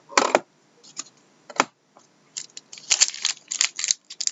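A few scattered clicks and taps as a trading-card pack is handled, then from about two and a half seconds in a run of crackly tearing as its foil wrapper is pulled open.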